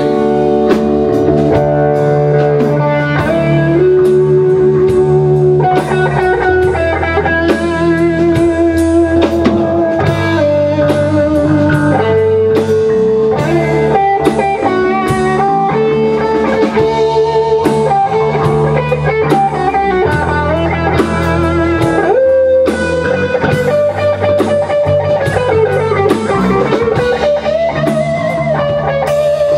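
Live band of two electric guitars and a drum kit playing an instrumental break without vocals, a lead guitar line with held notes and a string bend near the end over the rhythm guitar and steady drums.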